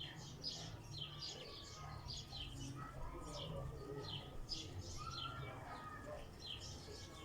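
Birds chirping in quick, overlapping high calls, many a second, over a steady low hum.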